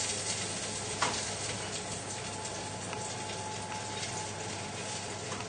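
Steady sizzling and bubbling of cooking on an electric hob: a frying pan of sliced pork in single cream simmering, with a pot of pasta boiling beside it. A single light knock about a second in.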